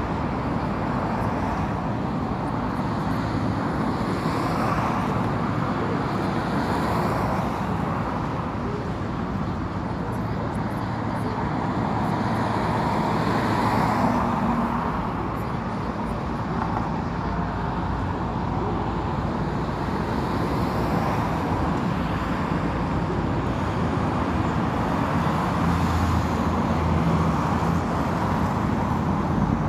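A steady outdoor rumble of road traffic, continuous and even, with no single event standing out.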